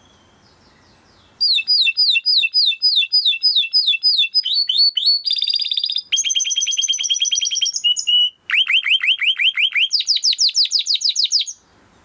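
Domestic canary singing a fast song of repeated phrases: runs of quick descending notes, rapid trills, a buzzy stretch and a brief held note, then fast sweeping notes. It starts about a second and a half in and stops just before the end.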